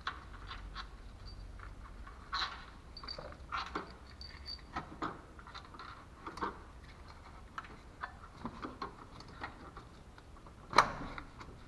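Scattered small metal clicks, clinks and short scrapes of hand work on the engine's coolant pipe and water outlet flange, with one louder sharp clack near the end.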